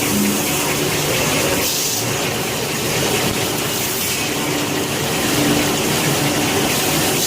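Automatic facial tissue paper log saw cutting machine running, a steady loud mechanical noise with a hiss that swells and fades every few seconds.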